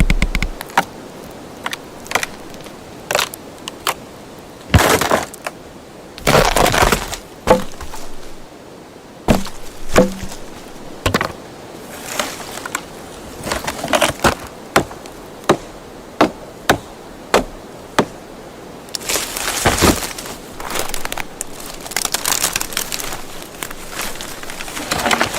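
Wood snapping and cracking: a string of separate sharp cracks, a few seconds apart or closer, broken up by several longer crunching stretches of wood breaking.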